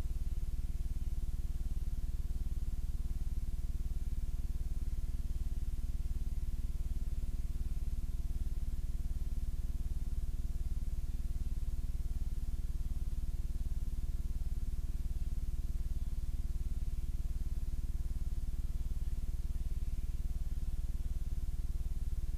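Steady low electrical hum with faint hiss from the blank end of a videotape transfer, with no programme sound on it.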